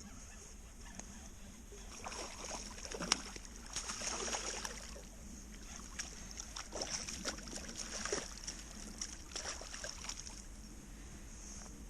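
Water splashing in irregular bursts, with a sharp knock about three seconds in.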